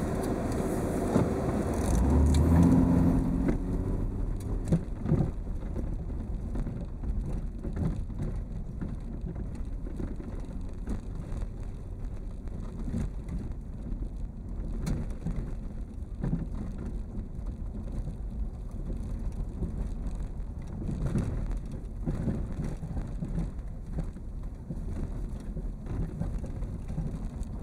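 A vehicle travelling along a road: steady engine rumble with tyre and road noise, louder for a second or two near the start.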